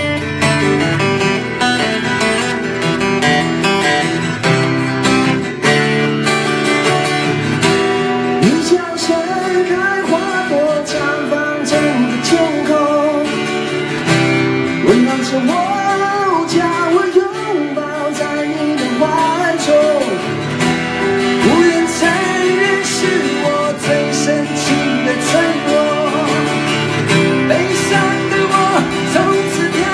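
Two acoustic guitars strumming and picking a song live, with a man's singing voice coming in over them about eight seconds in.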